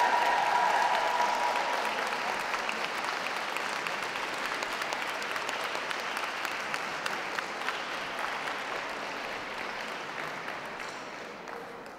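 Audience applauding, loud at first and gradually dying away.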